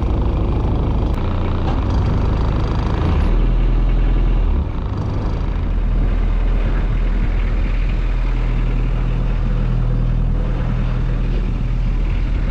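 Small fishing boat's inboard engine running under way, a steady low drone over water and wind noise. Its pitch and level shift a few times in the first five seconds, then hold steady.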